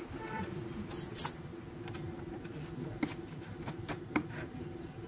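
Scattered light metallic clicks and taps of a hand tool on a Bajaj Pulsar 150 engine's flywheel and timing parts, with a sharper click about a second in. They come while the timing is being set. A faint steady hum runs underneath.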